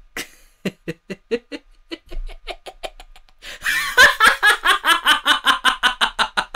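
A person's acted laugh. It starts as quiet, evenly spaced chuckles and, about three and a half seconds in, breaks into a loud full laugh of about five "ha"s a second.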